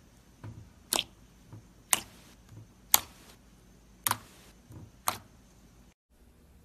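Slime being pressed and worked, popping with five sharp clicks about a second apart and softer squishes between them; the sound cuts off suddenly near the end.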